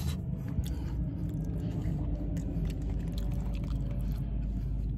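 A person chewing a mouthful of food close to the microphone: small irregular wet clicks over a steady low rumble inside a car cabin.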